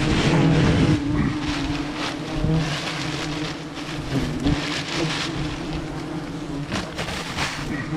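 Dense buzzing of a swarm of wasps flying close around an exposed paper nest, a low, wavering drone, with rustling and crackling from the nest's papery envelope being handled a few times.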